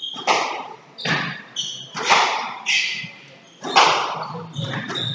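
Squash ball struck by rackets and cracking off the front wall in a fast rally, a sharp hit about every half second to a second, with short high squeaks of court shoes on the wooden floor in between.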